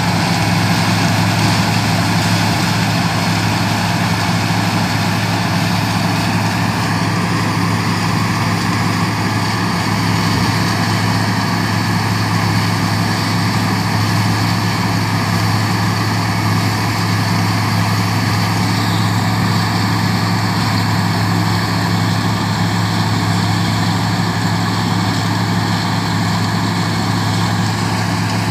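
Heavy diesel engine of a coal surface miner running steadily under load as the machine cuts along the coal seam, a constant low hum with a dense grinding noise over it.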